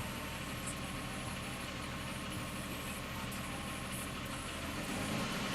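Toyota Cressida's 7M inline-six engine idling steadily while still warming up. About five seconds in the sound gets a little louder and its low hum changes.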